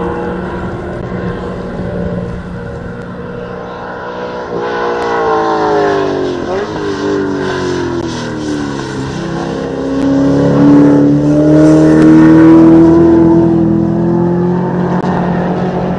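VT Holden Commodore race car's engine under hard acceleration. Its pitch sweeps down about six seconds in, then climbs steadily and is loudest near the end.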